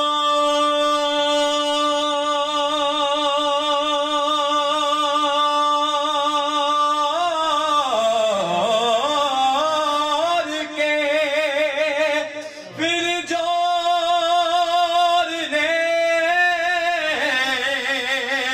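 A man's solo voice singing a Sufi devotional kalam. He holds one long steady note for about seven seconds, then moves into wavering, ornamented runs, with a short breath a little past halfway.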